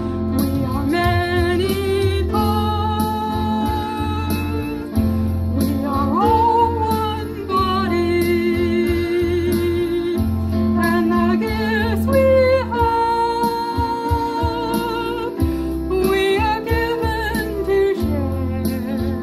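A hymn sung over steady instrumental accompaniment, the voice holding long notes with vibrato.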